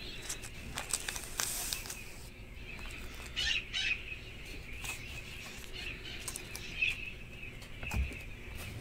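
Cards and plastic card holders being moved about on a tabletop: scattered light clicks and brief rustles, with a low thump near the end.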